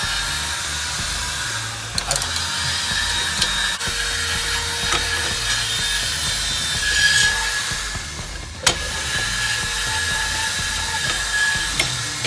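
Rear drum parking brake shoes and return springs being handled and fitted by hand, giving a few sharp metal clicks over a steady workshop noise.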